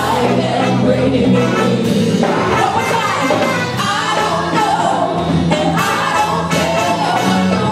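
Live gospel band playing, with singing over a steady bass line.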